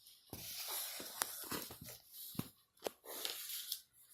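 Handling noise from fitting a small plastic toy tennis racket onto a plastic doll: several sharp clicks and taps, with hissy rustling between them.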